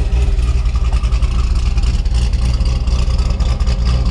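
C5 Corvette Z06's LS6 V8 idling steadily, heard at the tail of the car: a deep, pulsing low rumble through catless headers and the stock titanium axle-back exhaust, with a swapped camshaft, running pretty smooth.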